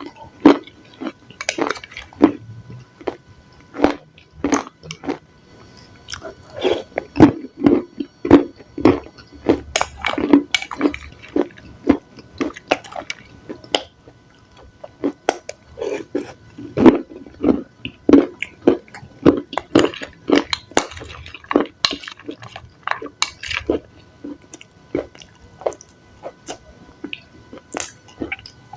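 Close-miked chewing of salad: irregular wet crunches and crackles of raw leaves and vegetables, coming in bursts.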